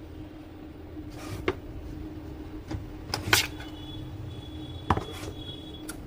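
Scattered sharp clicks and knocks from the printer's plastic and metal parts being handled and fitted during reassembly, about five in all, the loudest a little after the middle, over a steady low hum.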